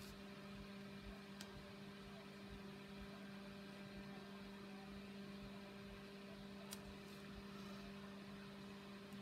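Near silence: a steady low electrical hum, with two faint ticks.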